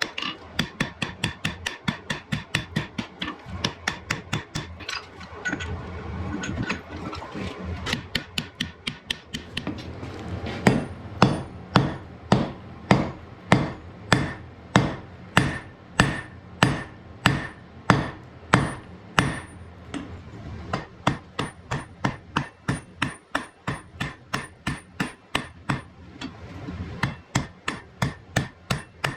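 Blacksmith's hammer striking hot iron on an anvil in quick, steady blows, about two to three a second, as the axe head is forged. Many strikes carry a high ring. The blows soften briefly about a fifth of the way in.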